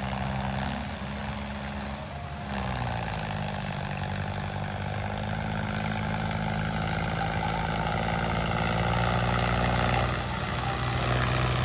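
Small electric motor and gearing of a homemade toy tractor running steadily under load as it pulls a trolley of stones. The drone changes and fills out about two and a half seconds in.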